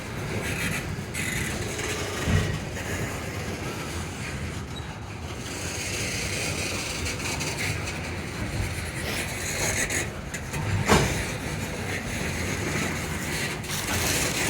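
Loaded coal train rumbling steadily, with two sharp metallic knocks, one about two seconds in and a louder one about eleven seconds in.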